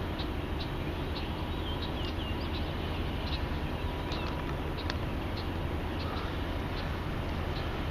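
Small birds chirping, many short high chirps and a few quick sliding notes, over a steady low rumble.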